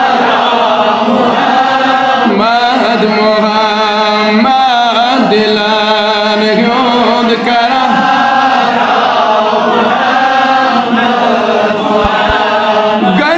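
Male voice singing a devotional naat in a chanting style: long, wavering melodic lines held without a break, over a steady low held note.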